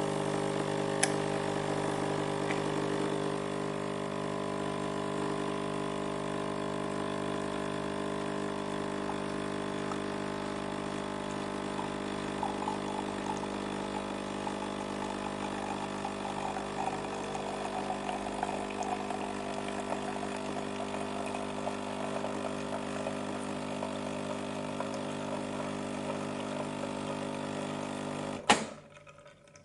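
Coffee machine running, its pump or motor making a steady pitched hum. A sharp click near the end marks where it switches off and the hum stops.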